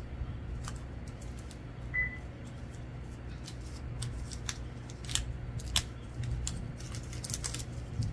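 Scattered light clicks and ticks over a steady low hum, the sharpest a little before six seconds in, with one brief high beep about two seconds in.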